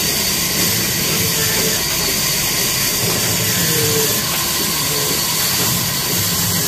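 Old black diesel engine running steadily with the machinery it drives, a continuous mechanical rumble under a strong hiss.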